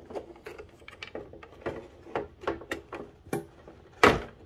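Irregular light clicks and knocks of circuit boards and wiring being handled in a plastic electrical enclosure, with one louder knock near the end.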